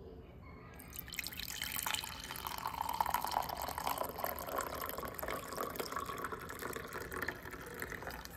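A milky drink poured from an IKEA vacuum flask in a steady stream into a ceramic mug, splashing and filling it; the pour starts about a second in and stops just before the end.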